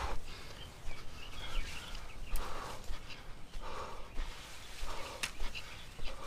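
Heavy, tired breathing of a person climbing a steep slope, one breath about every second, with a few sharp snaps of footsteps on twigs and leaves.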